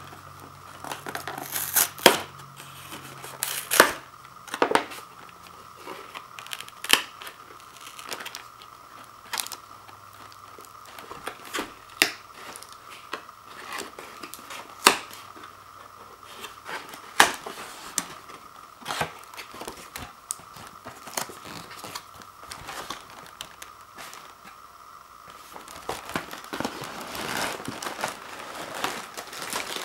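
Paperboard Ritz cracker box being opened by hand: the perforated tab pulled and the flaps torn and bent open, giving scattered sharp snaps and short tears of cardboard. Near the end the crinkling becomes denser as the plastic-wrapped cracker sleeves are handled.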